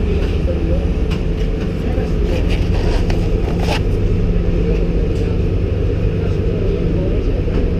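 Boat engine running steadily under way, a low drone mixed with the rush of water and wind past the open side of the boat, with a few sharp knocks around the middle.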